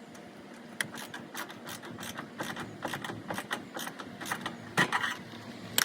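Hand ratchet wrench clicking in a run of quick, irregular strokes, with a couple of louder metallic clicks near the end.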